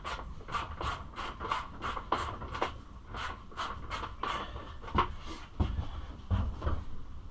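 A run of sharp, regular clicks, about three a second, then a few heavier knocks a little after four seconds in: hand work on a tight seat fitting on a Kawasaki KLX110 pit bike.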